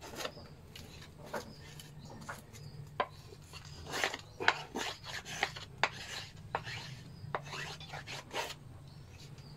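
Knife blade shaving curls of wood off a wooden mandau blank in short, irregular scraping strokes, some louder than others. A faint steady low hum runs underneath.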